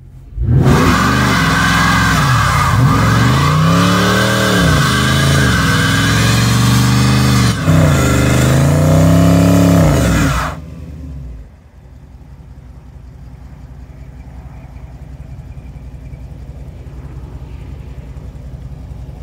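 Dodge Charger 392's 6.4-litre HEMI V8 revving hard during a line-lock burnout, the rear tyres spinning and smoking on the pavement, the revs rising and falling several times over about ten seconds. Then the throttle is released and the engine settles to a much quieter, steady low rumble.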